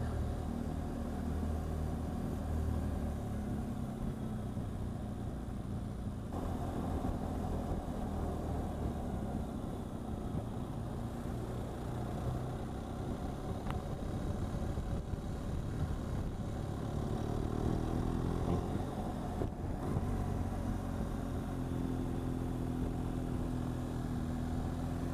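BMW R1200GS boxer-twin engine running under way, with wind and road noise. The engine note rises in pitch as it accelerates about three-quarters of the way in, then holds steady.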